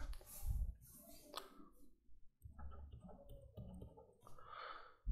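Faint, scattered clicks and taps of a stylus on a pen tablet during on-screen handwriting.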